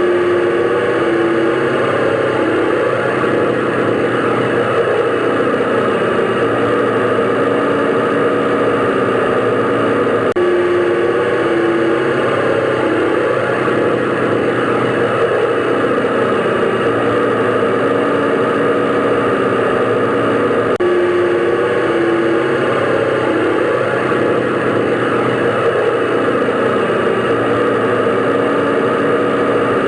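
Airplane engine drone, steady and continuous, with a low hum and a hiss above it; the same stretch repeats about every ten seconds.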